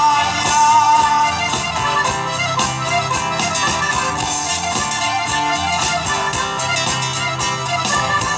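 Live Southern Italian taranta (tarantella) band playing an instrumental passage: an accordion melody over strummed acoustic guitars and a fast, steady tambourine beat.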